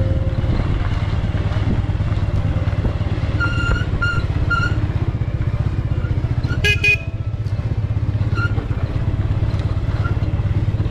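Bajaj Avenger 180's single-cylinder four-stroke engine running steadily while the motorcycle rides slowly over a rough gravel track. Three short high-pitched peeps sound about four seconds in, and a brief louder tone near seven seconds.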